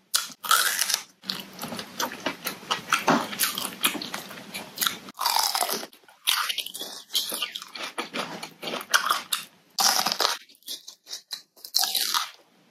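Raw bitter melon being chewed close to the microphone: a dense run of wet, crisp crunches, with short lulls about halfway and again near the end.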